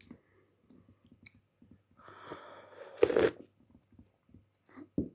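Quiet chewing with small crunchy clicks, then about three seconds in a short, loud throaty cough, the cough of someone down with the flu.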